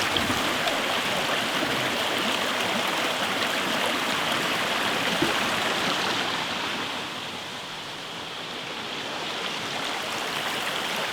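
Woodland stream running, a steady rushing wash of water that dips a little quieter for a couple of seconds past the middle.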